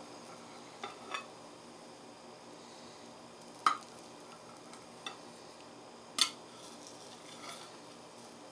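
Metal knife blade clicking against a ceramic plate while cutting a slice of set gelatin. There are a few soft taps and two sharper clinks, about three and a half and six seconds in.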